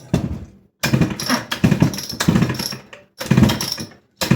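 Recoil starter of a 1992 Homelite Super XL Automatic two-stroke chainsaw being pulled over and over, about once a second, with the engine turning over against compression but not firing. It has no fuel in it, and there is plenty of compression.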